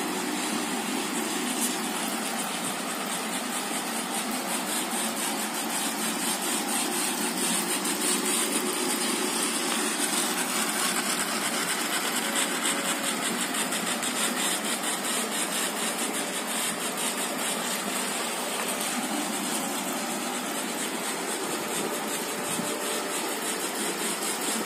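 Small plastic-geared DC "BO" gear motors of a robot car running steadily, an even whir of motors and gearboxes as the wheels turn.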